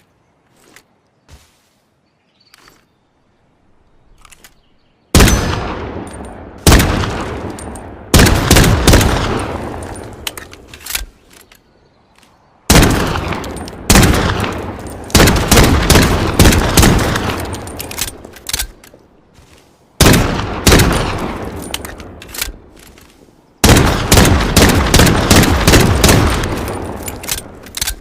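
Desert Eagle pistol shots: after a few faint clicks, a series of very loud single shots fired in several groups, each shot followed by a long echoing decay.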